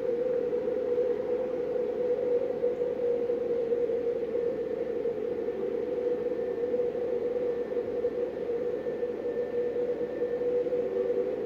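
Steady, low underwater-ambience drone played through a TV's speakers, even in level throughout.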